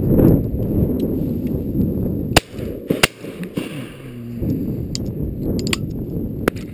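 Shotgun fired twice in quick succession at a flying pheasant, two sharp cracks about two-thirds of a second apart, over steady wind noise on the microphone.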